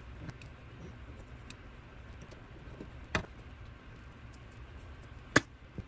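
Small metal clicks and taps of a Fiat 850 fuel pump being taken apart by hand as its cover screws come out, with a sharper click about three seconds in and a loud, short click about five and a half seconds in.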